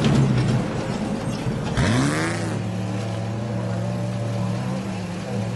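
Off-road race vehicle's engine running, with one quick rev up and back down about two seconds in, then settling to a steady idle.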